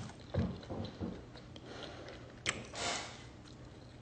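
Quiet sounds of a person eating: a few soft knocks, a sharp click about two and a half seconds in, then a short breath.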